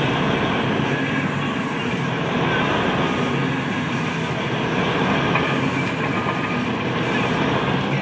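Heavy mining machinery running steadily, heard from inside an operator's cab: a loud, even, low drone with a dense rumble over it.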